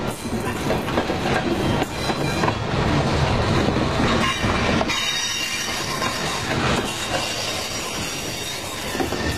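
Freight train of centerbeam lumber flatcars and a tank car passing at close range: steady running noise of steel wheels on the rails with repeated clicking and some high wheel squeal, easing slightly about halfway through.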